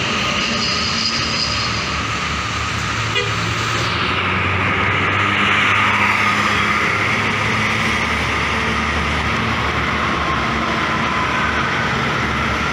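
Road traffic: a heavy vehicle's engine running close by, with tyre and road noise swelling about five seconds in as it passes.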